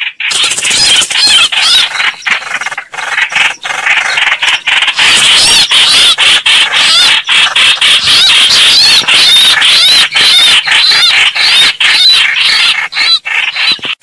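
Loud recording of bird calls played as a hunting lure: a dense, continuous high-pitched squealing chatter of rapid repeated notes that starts abruptly just after the beginning.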